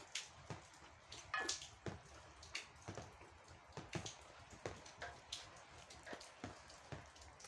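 Cats chewing cooked chicken bones and scraps: faint, irregular crunches and clicks, about one or two a second.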